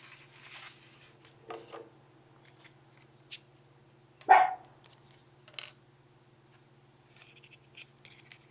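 A dog barking: one sharp bark about four seconds in and a softer one about a second and a half in. Between them come scattered clicks and rubbing of plastic phone-case parts being handled.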